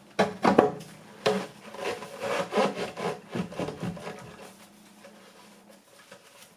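A few sharp knocks, then a run of rubbing, scraping strokes that fade out: PVC drain pipe being worked and pushed into its fittings.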